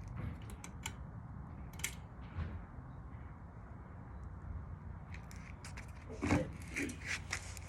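Casablanca Waliea ceiling fan running in reverse on a test rig: a steady low hum and air noise. Scattered small clicks and a louder short scrape about six seconds in, from handling.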